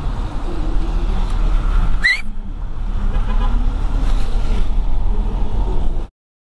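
Van driving, heard from inside the cab: a steady low engine and road rumble, with a brief rising chirp about two seconds in. The sound cuts off suddenly near the end.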